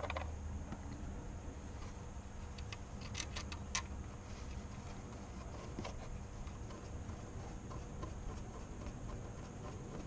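Light metallic clicks from hand work refitting a power steering pressure line and threading its bolts: a cluster of clicks about three seconds in, then faint rapid ticking.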